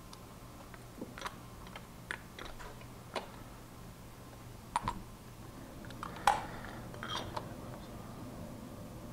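Scattered light metal clicks and taps of a half-inch ratchet and cap wrench being fitted and worked on an outboard's oil filter to loosen it. The sharpest click comes about six seconds in.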